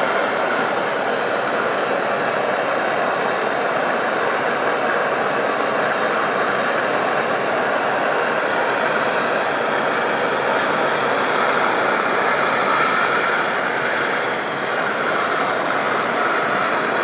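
Electric heat gun running steadily, its fan blowing hot air onto a gypsum board, a constant rushing noise with a faint whine.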